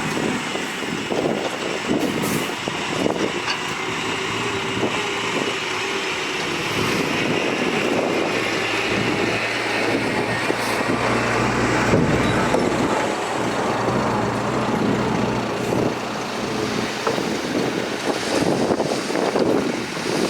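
Heavy diesel earthmoving machinery, dump trucks and a bulldozer, running steadily under load, with a low continuous engine hum.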